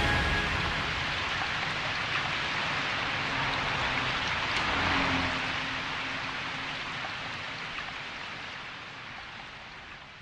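Even, rain-like hiss after the music stops, swelling a little about five seconds in with a faint low hum, then slowly fading out.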